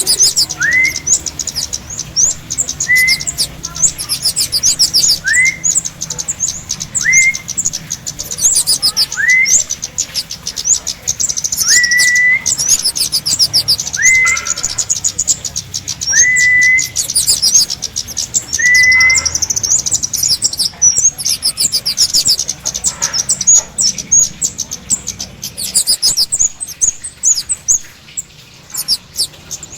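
Kemade birdsong played as a lure call: dense, rapid high chirping and trilling throughout, with a clear upslurred whistle repeated about every two seconds for roughly the first two-thirds.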